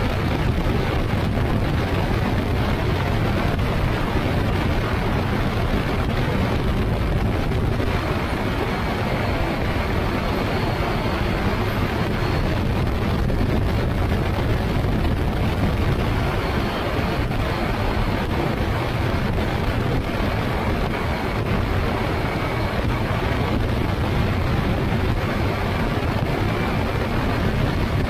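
Steady in-flight noise of a motorized hang-glider trike: wind rushing over the microphone, with the engine and pusher propeller running steadily underneath.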